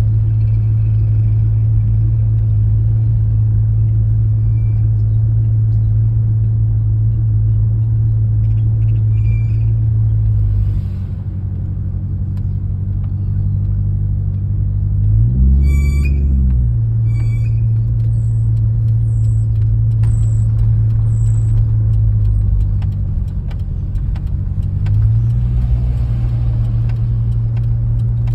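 Car engine and exhaust running with a steady low drone while the car rolls slowly, heard from inside the cabin with the window open. The pitch drops twice, about a third of the way in and again near the end, and rises and falls briefly near the middle as the engine speed changes.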